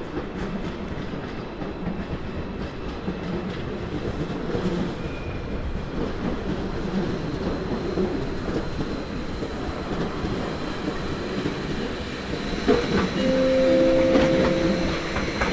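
A train running through the station, a steady rumble with wheels clicking over the rail joints. Near the end a station chime of a few held tones sounds, the signal that a public-address announcement follows.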